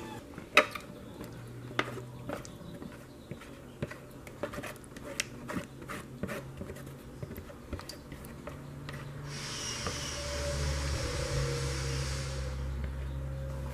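Thick yogurt being poured and scraped into a stainless steel pot with a silicone spatula: scattered light clicks and knocks of the container and utensil against the pot, then a steady scraping hiss for about three seconds from about nine seconds in.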